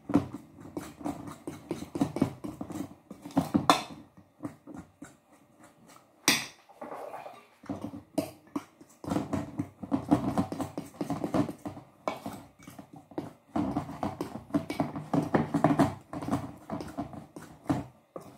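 A fork stirring and scraping through flour and lumps of frozen butter in a stainless steel bowl: rapid scratching with sharp clicks of the fork against the metal, in spells of a few seconds with short pauses between.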